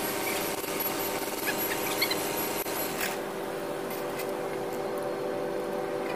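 Hand tools scraping and rubbing against the steel housing of a forklift roll clamp's rotator motor during seal replacement, heaviest over the first three seconds, over a steady machine hum.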